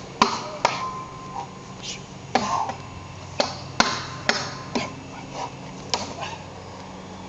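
Albion steel longsword striking a wooden pell post in a series of about eight sharp, irregular knocks. After some of the hits the blade rings briefly.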